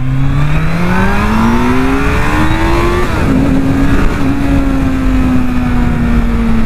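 Kawasaki Z800's inline-four engine accelerating hard, its pitch climbing for about three seconds, then dropping sharply at an upshift and running on steadily, easing slightly lower, with wind noise.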